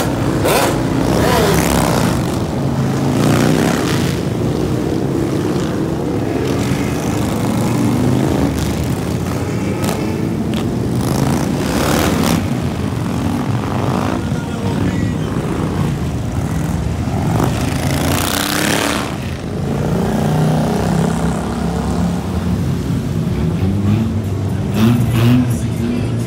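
Motorcycles, among them a sport bike and a cruiser, riding past one after another, engines running and revving, the sound swelling and fading as each goes by.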